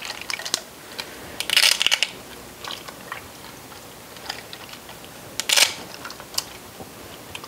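Bundles of dry fettuccine snapped in half by hand: a crackling run of snaps about two seconds in, and a second, shorter burst a few seconds later.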